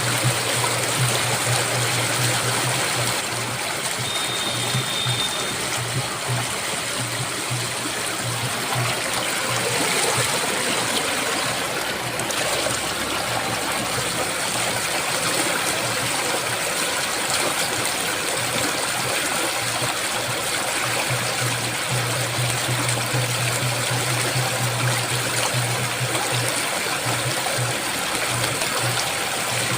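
Rushing water of the Ganges river, a steady even noise, with a low hum that comes and goes and a brief faint high whistle about four seconds in.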